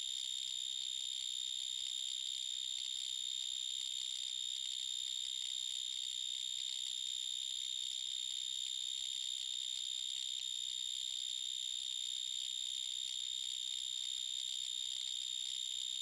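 Recorded insect song played back: one continuous, steady, high-pitched call that does not change in pitch or level.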